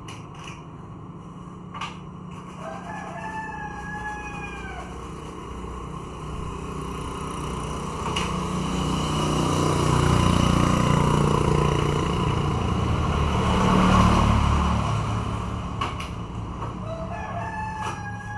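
A rooster crowing twice, once near the start and once near the end, each a long call that rises then falls away. In between, a louder low rumble swells and fades.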